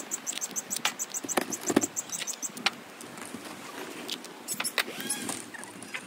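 Aviary birds chirping and chattering, with a fast high trill through the first two seconds and short rising-and-falling chirps near the end. Several sharp clicks and knocks come in between, about one to three seconds in.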